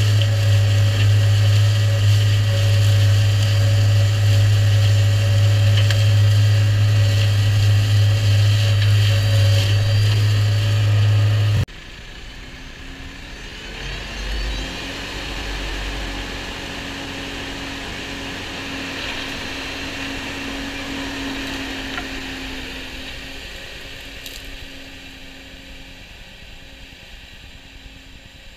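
New Holland tractor engine and Shelbourne flail hedge cutter running while mowing a ditch bank: first a loud steady drone heard from on the tractor, then an abrupt cut to a quieter run as the flail head passes close, after which the tractor works away and the sound fades.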